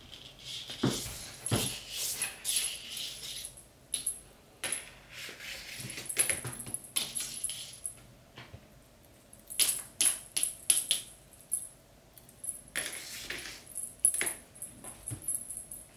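A kitten playing with a wand toy: irregular bursts of metallic jingling and rattling from the small toy on the string, mixed with soft thumps and scrabbling of paws on the floor as it pounces.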